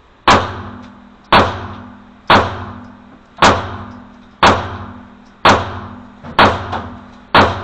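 3-inch EMP pistol firing 124-grain rounds in steady slow fire: eight shots, about one a second, each with a short ringing echo.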